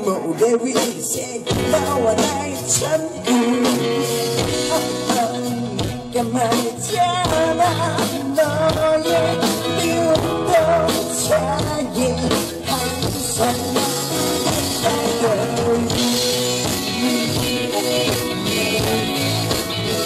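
Live rock band playing a song: a lead singer sings over drums, guitar and a keyboard.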